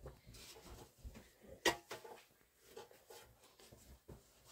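Faint scattered knocks and rustling of people moving about and handling household things, with one sharp clack about a second and a half in.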